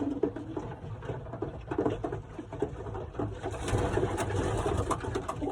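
Racing pigeons cooing repeatedly in a loft, with scattered light clicks and rustles from about halfway through.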